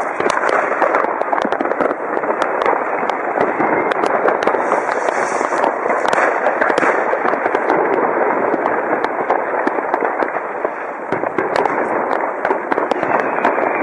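Fireworks: many firecrackers and rockets going off all at once, a dense continuous crackle with countless sharp pops.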